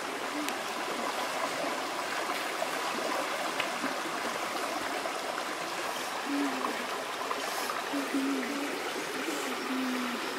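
Shallow rocky stream running, a steady rush and trickle of water over stones.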